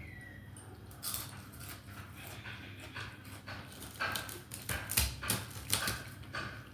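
A person eating close to the microphone: irregular wet chewing and crunching clicks, several a second, starting about a second in.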